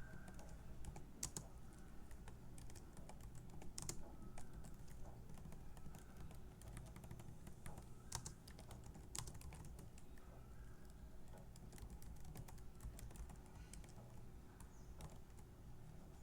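Computer keyboard typing: irregular key clicks as code is typed, over a faint steady hum.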